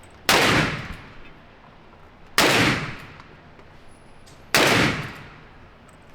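Three single gunshots about two seconds apart, each followed by a short echoing tail.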